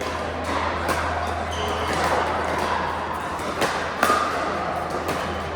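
Pickleball play: several sharp pops of a plastic ball struck by paddles and bouncing on the court, the loudest about four seconds in, over a steady low hum and background noise.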